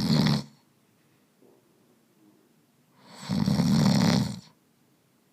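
A person snoring, recorded overnight on a phone by a sleep-tracking app. One snore fades out about half a second in, and another long, rough snore starts about three seconds in and lasts just over a second.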